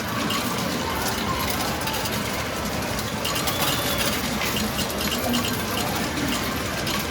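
Metal medals clinking and sliding in the Gacha Mambo! Jr. medal-pusher game machine, over the steady din of a game arcade, with a few short electronic beeps from the machines a few seconds in.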